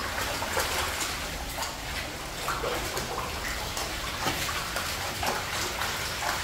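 Shallow floodwater on a tiled floor splashing and sloshing, with irregular wading footsteps about once or twice a second.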